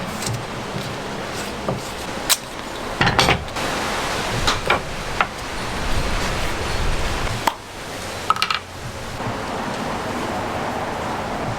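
Woodworking on knife-handle scales: a steady noisy hiss of tool work on wood, broken by scattered knocks and taps.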